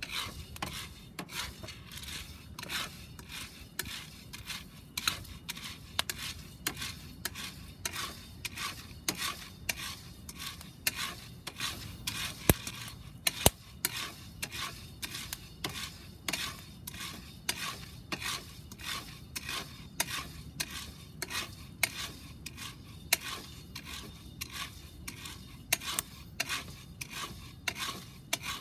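Wooden spoon stirring about 250 g of coffee beans as they are pan-roasted in a round cast iron pan: beans rattling and scraping over the iron in short, even strokes, about two to three a second. Two sharper clicks stand out about halfway through.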